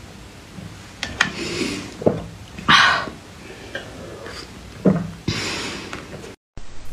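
A person slurping and gulping melted ice slush straight from a plastic container, in several short noisy slurps about a second apart, the loudest just before the middle. A sharp click about a second in.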